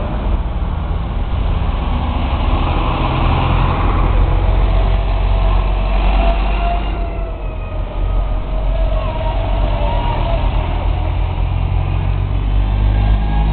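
A line of diesel farm tractors driving past one after another, engines running steadily with a low drone. A fainter whine rises and falls in pitch near the middle.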